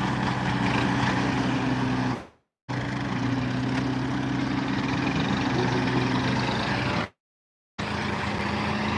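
Diesel engines of an excavator and a tractor running steadily with a low hum. The sound drops out to silence twice, briefly.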